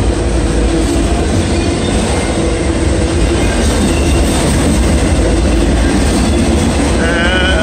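Freight train of autorack cars passing close by at speed: the steady, loud noise of steel wheels on rail.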